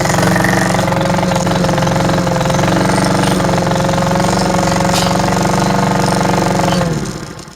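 Cub Cadet push mower's Powermore 173cc single-cylinder four-stroke engine running steadily under mowing load, at what the owner finds a slightly low RPM. Near the end its speed drops and the sound dies away as the engine is shut off.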